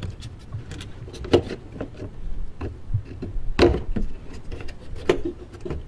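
Plastic underbody splash shield being pushed and fitted into place: scattered knocks and rubbing of plastic against the car's underside, with sharper knocks about a second and a half in, near four seconds and about five seconds in.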